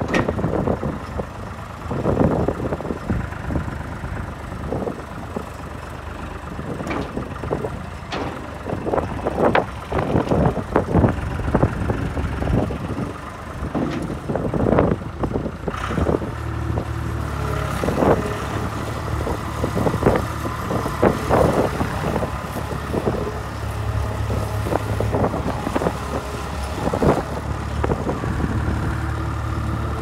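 John Deere 250 skid steer's diesel engine running as the machine drives and maneuvers, with many short knocks and clatters. From about halfway through, the engine holds a stronger, steadier note.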